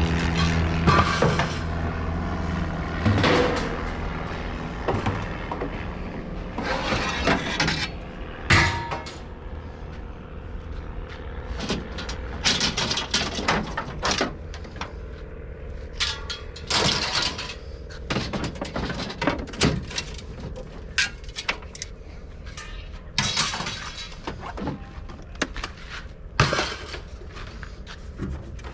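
Scrap metal clattering and crashing as pieces are thrown down, in irregular bangs, some ringing briefly. An engine runs underneath for the first few seconds, then fades.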